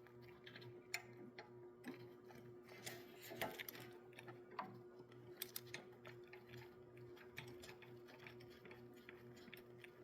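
Faint, irregular small metal clicks as a ground bolt and its lock washer are worked by hand into a threaded hole on a small engine's carburettor mount, over a low steady hum.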